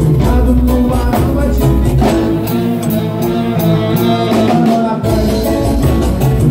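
Live band playing upbeat Latin dance music, with drum kit, congas and keyboard on a steady beat. The deep bass drops out for a couple of seconds in the middle and comes back in about five seconds in.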